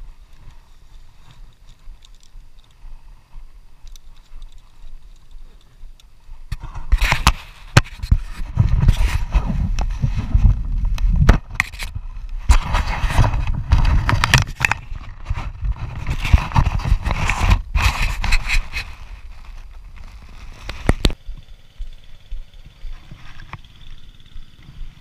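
Clothing rustling and knocking against a body-worn action camera as the wearer walks through grass, loud and rumbling with many sharp knocks for about fourteen seconds in the middle, fainter rustling before and after.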